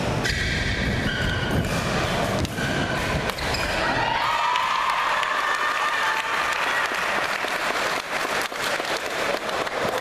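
Badminton rally: rackets striking the shuttlecock and court shoes squeaking on the floor, followed by spectators clapping in the second half.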